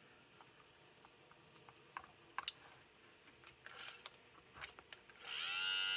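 A few light clicks and taps, then, about five seconds in, the small DC motor from a Toyota Prius C door lock actuator starts on a 12-volt power supply: a quick rise in pitch into a steady high whine. With its worm gear off, the motor is spinning freely with no load.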